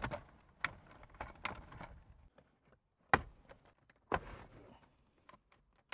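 Hard plastic knocks and clicks, with rustling between them, as an aftermarket head unit and its dash bezel are pushed and worked into the dashboard opening; a few sharp knocks about a second apart, the loudest about three seconds in.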